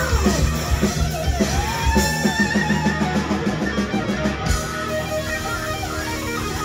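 Live rock band playing: an electric guitar lead with notes bending up and down over a fast, driving low rhythm. About four and a half seconds in, the pounding low end drops away, leaving held guitar notes ringing.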